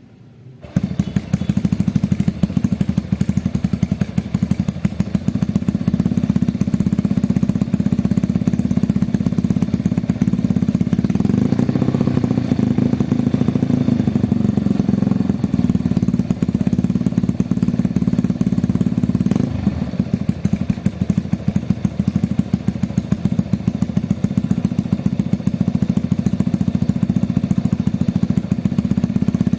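Bored-up Yamaha Jupiter Z motorcycle engine (62 mm piston, 34 mm PWK carburettor) running through an aftermarket CKD exhaust, with a loud, rapid exhaust beat. It comes in abruptly just under a second in and then holds at a fairly steady speed.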